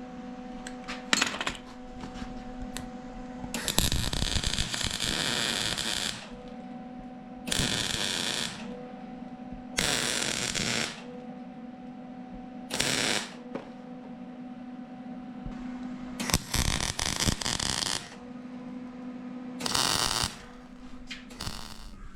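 Socket ratchet working a fastener in a series of strokes, each a second or two of rapid clicking, over a steady electrical hum.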